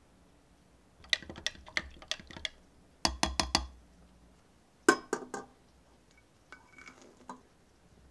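A measuring spoon clinks and taps against the side of a glass measuring jug as yeast is stirred into milk. The taps come in four short runs of quick strikes, the last one fainter.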